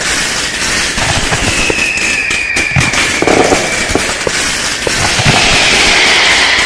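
Fireworks going off: dense crackling and popping of firecrackers, with a thin whistle from about one and a half seconds in that slowly falls.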